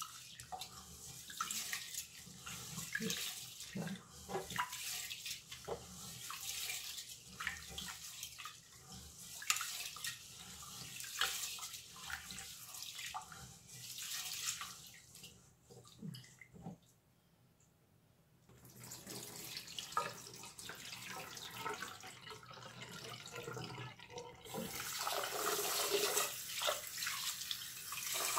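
Raw rice being washed by hand in a pot of water: fingers stir and rub the grains, a gritty swishing with many small splashes. It drops out briefly about two-thirds of the way in, and near the end water pours steadily.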